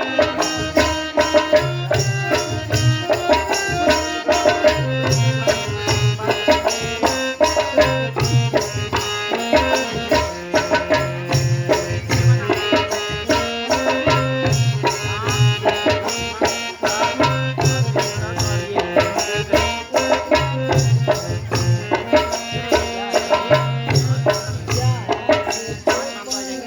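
Folk-style music: a melody line over steady drum and rattle percussion, with a low pattern that repeats about every three seconds.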